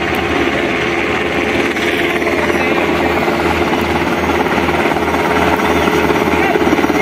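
Sikorsky UH-60L Black Hawk twin-turbine helicopter in flight on approach, its four-blade main rotor beating in a steady pulse over an even hum, growing a little louder toward the end.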